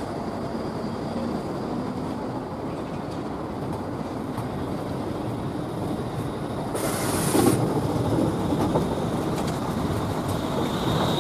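Geneva Be 6/8 Bombardier Cityrunner tram rolling past at close range, its steel wheels rumbling on the rails. A short hiss comes about seven seconds in, and a thin high wheel squeal starts near the end as it runs through the curved track.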